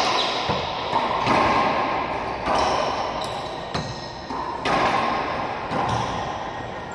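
Racquetball rally: a quick series of sharp smacks as the ball is struck by racquets and hits the walls and floor, each one ringing on with the echo of the enclosed court.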